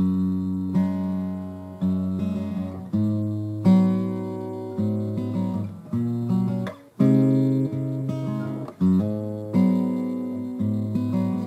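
Guitar music: chords struck about once a second, each ringing out before the next.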